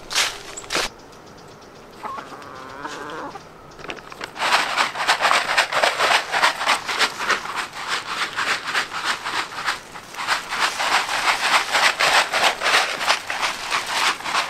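Footsteps crunching dry leaves at the start, then from about four seconds in a rapid, continuous clucking from a flock of hens.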